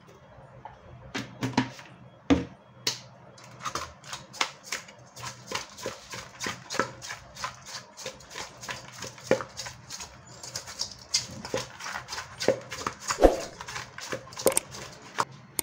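Masala-coated fish pieces being mixed by hand in a steel bowl: a run of short wet slaps and clicks against the bowl, a few a second, starting about a second in.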